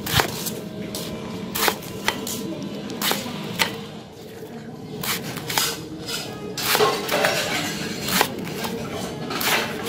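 Large kitchen knife slicing a banana blossom into rounds on a wooden chopping board: about ten crisp cuts at an uneven pace, each ending in a knock on the board.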